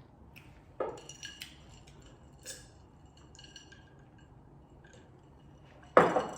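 Tableware clinking lightly a few times in the first few seconds, each clink ringing briefly. A louder knock comes near the end.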